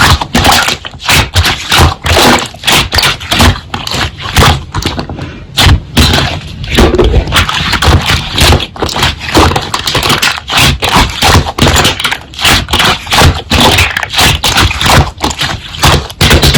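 Slime being squeezed, pressed and poked by hand, a dense run of rapid clicking and popping squelches.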